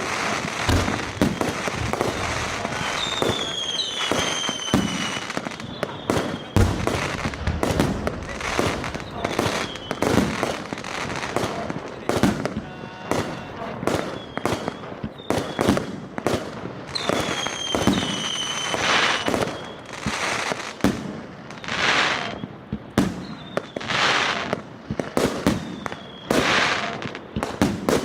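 A 100-shot, 2-inch consumer firework cake firing shot after shot: rapid thumps of launches and bangs of aerial bursts, with a few whistles falling in pitch early on and around the middle, and longer hissing breaks in the second half.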